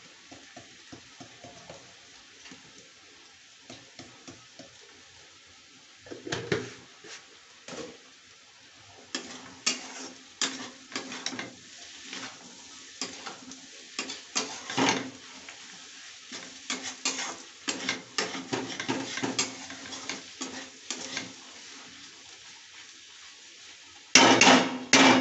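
A flat metal spatula scrapes and clinks irregularly against a metal kadhai as potatoes and peas are stirred, over a faint frying sizzle. The scraping is sparse at first, busiest in the middle, and comes in a short loud flurry near the end.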